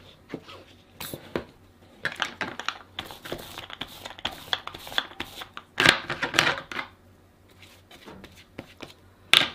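A glue brush scraping in a run of short strokes across paper and chipboard, with rustling of the paper and fabric being handled, then a sharp click near the end.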